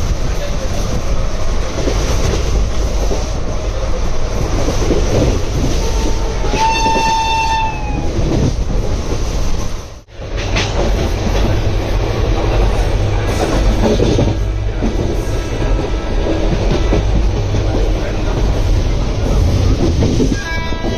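Express train running at speed, heard from the coach doorway behind the WAP-7 electric locomotive: a steady rumble and wheel clatter over the rails with wind. About seven seconds in the locomotive's horn sounds once for about a second and a half, and another horn blast begins right at the end.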